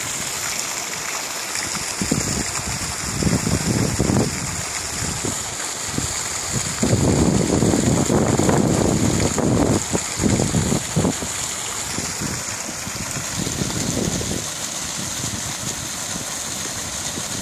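Small waterfall cascades spilling over a sandstone ledge into a shallow creek, a steady rush of splashing water. Gusts of wind buffet the microphone with a low rumble, heaviest from about seven to ten seconds in.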